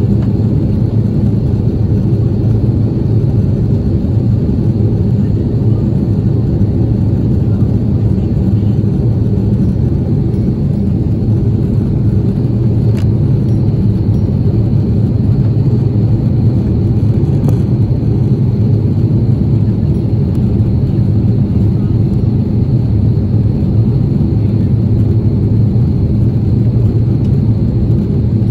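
Steady low rumble of an Airbus A330-300's jet engines and rushing air, heard inside the passenger cabin as the airliner descends toward landing.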